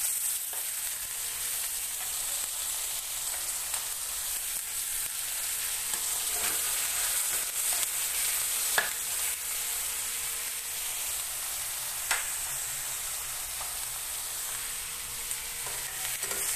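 Pink salmon pieces frying in hot oil in a pan over a lowered flame: a steady sizzle with a few sharp clicks, the loudest about nine seconds in and another about twelve seconds in.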